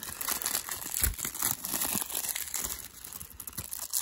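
Plastic shrink wrap crinkling and tearing as it is handled and peeled from a CD case, with a soft low bump about a second in.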